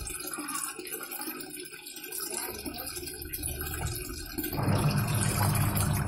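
Water pouring into the drum of a Sanken single-tub top-loading washing machine, with a brief click at the start. About four and a half seconds in, the wash motor starts and the water begins to churn: the fill has stopped at its set level and the wash cycle is running, the sign that the new water-level control has cured the never-ending fill.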